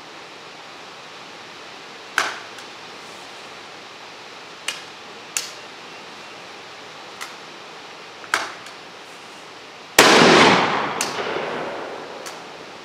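Stoeger Coach Gun, a 12-gauge side-by-side shotgun: several sharp clicks as it snaps on a round that won't fire (light primer strikes), then about ten seconds in the shot goes off, the loudest sound, ringing out and fading over about two seconds. The owner puts the misfires down to hard primers in the ammunition, or to the firing pins.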